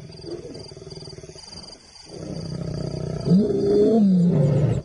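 Male lion growling into a roar. It builds from about two seconds in, is loudest just after three seconds with a wavering pitch, and cuts off just before the end.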